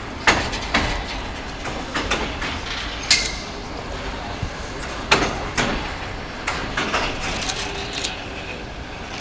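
Slow passenger train running, heard from inside the carriage: a steady low rumble with irregular sharp knocks and rattles.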